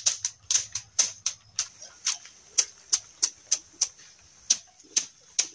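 Grass brooms slapped against a mud wall to daub it with white clay slurry: a quick, uneven run of sharp strikes, about three a second.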